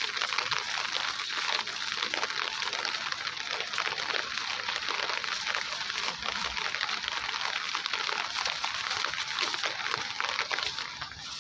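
Rain falling steadily, a dense crackling hiss that eases slightly near the end.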